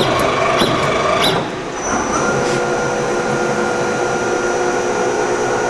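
1989 YCM Supermax TC-2 CNC lathe running its program in automatic mode. First comes a mechanical whir with a couple of clicks; then, about two seconds in, a steady whine with several constant pitches as the spindle turns the chuck.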